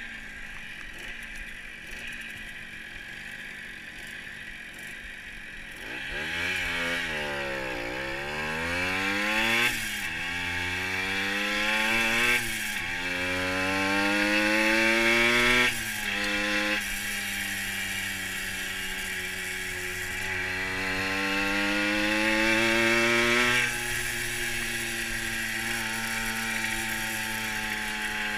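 Fantic TI moped's small two-stroke engine, heard from the saddle: running low and even at first, then revving up about six seconds in and accelerating through the gears, its pitch climbing and dropping back at each of about four gear changes, before settling to a steady cruise near the end. Wind hiss over the microphone.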